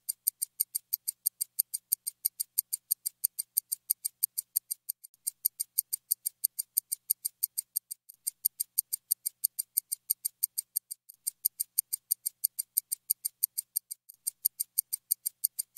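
Rapid, evenly spaced high-pitched ticking, about five ticks a second, with a short break every three seconds or so: a looped ticking sound effect.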